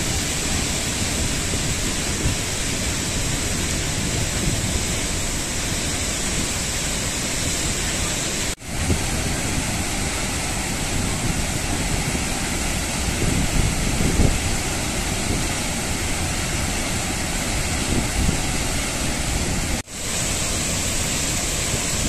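Athirappalli waterfall: a steady rush of falling water crashing onto rock. The sound drops out for an instant twice, about nine seconds in and near the end, and comes straight back.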